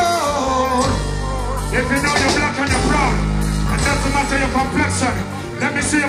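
Live reggae band with drums, bass, keyboards and guitar playing through the stage sound system, with a male vocalist singing and chanting into the microphone over it.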